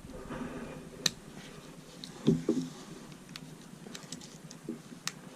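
Scattered small clicks and taps of a Swiss Army knife being handled as its back tools are pried out and snapped back against the spring, with a louder knock about two seconds in.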